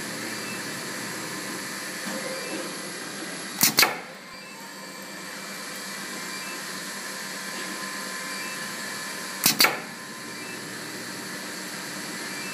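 Pneumatic foil-trimming machine for HDMI cable cycling twice, about six seconds apart. Each cycle is a quick pair of sharp clacks from its air cylinder. A steady hiss runs underneath.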